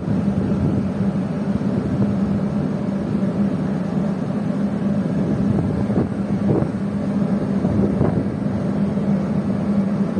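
Steady drone of a ship's engines and machinery, a constant low hum under a continuous rushing noise.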